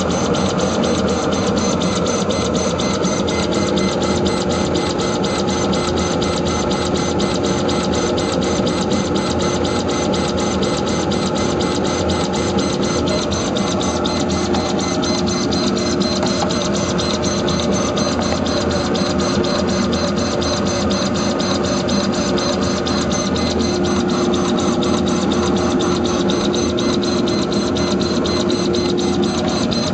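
Laser engraver rastering across anodised aluminium business cards: a steady mechanical buzz with a fast, even rhythm from the moving head, holding the same level throughout.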